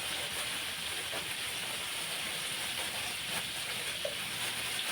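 Steady sizzling hiss of stir-frying in a wok, with a few faint clicks.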